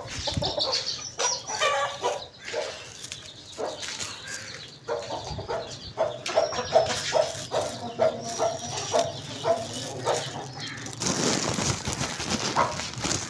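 Hen clucking in a quick run of short repeated calls, with chicks peeping high and thin, amid scattered light taps. Near the end comes a rushing patter as millet grain is scattered for the birds.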